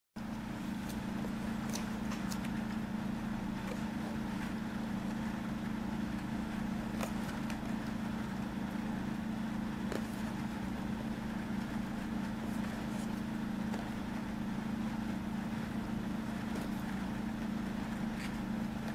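Steady low background hum, with a few faint taps as a cardboard box is handled and turned in the hands.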